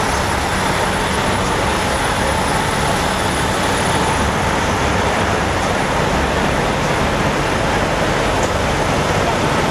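Steady, loud din of idling diesel semi-truck engines.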